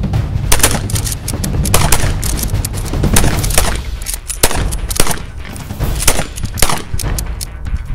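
Two shotguns firing in a rapid, irregular string of shots, some close together and overlapping, about a dozen in eight seconds.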